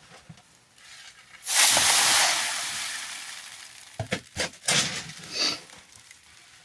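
Cat litter granules pouring and rattling into a litter box: a loud hissing rush that starts suddenly about a second and a half in and tapers off, followed by a few sharp clicks and rattles.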